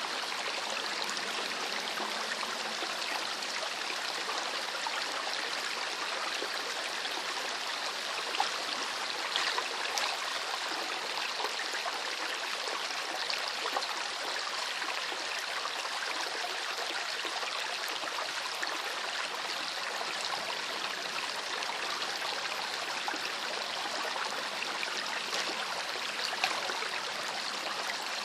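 Small river flowing over stones, a steady rushing and trickling with brief splashes here and there.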